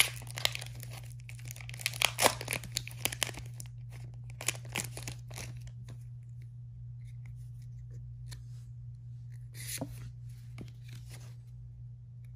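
Foil booster-pack wrapper being torn open and crinkled: a quick run of ripping and crackling over the first few seconds, another short rip around five seconds in, then only occasional soft crinkles. A steady low hum runs underneath.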